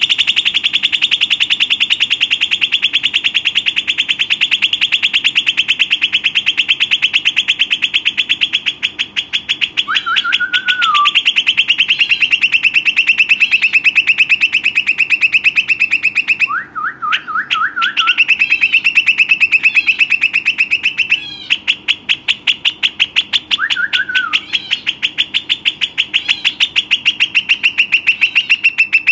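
Rock nuthatch singing a long, loud, rapid trill of repeated high notes that barely pauses, broken twice by brief gaps. Three times it is joined by short lower notes: a falling note, a quick run of rising notes, and another falling note.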